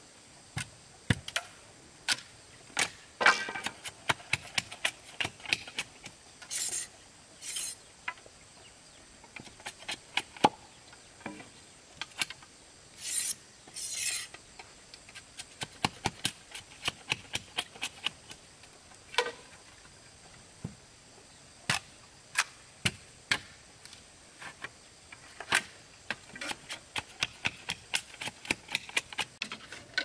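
Irregular knocks and taps of hand tools working bamboo, with a few short scraping strokes about a quarter and halfway through.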